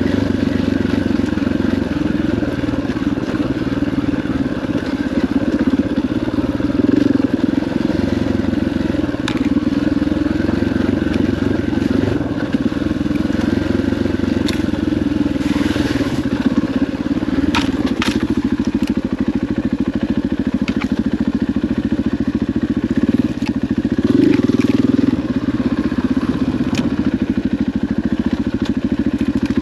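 KTM 500 EXC dirt bike's single-cylinder four-stroke engine running steadily at trail speed on singletrack, the bike making its way on a hot, dragging clutch. About halfway through, brush scrapes and snaps against the bike in a short run of clicks.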